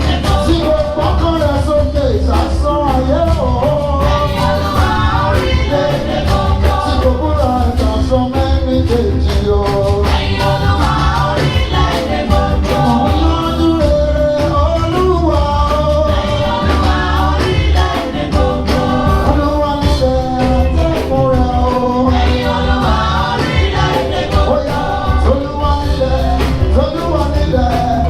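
Live gospel music: a singer with band accompaniment, the melody moving continuously over a steady bass.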